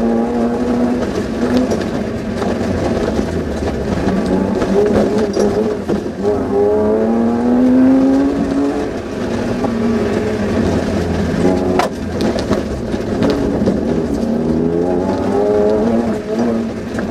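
Suzuki Vitara's engine heard from inside the cabin, revving hard under load with its pitch climbing and dropping again as the car is driven through an off-road stage. A single sharp knock about twelve seconds in.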